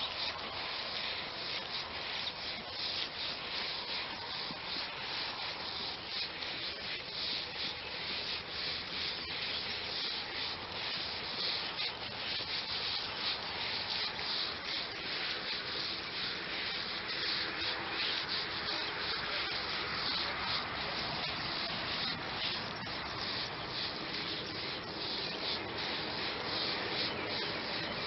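Rustling, brushing noise of footsteps walking through long grass close to the microphone, a dense run of short irregular scuffs at a steady level.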